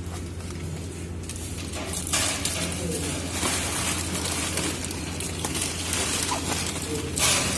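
Crinkling and rustling of foil-faced pipe insulation under a hand rubbing along a chilled-water pipe, coming in uneven stretches with a sharper crackle near the end, over a steady low machinery hum.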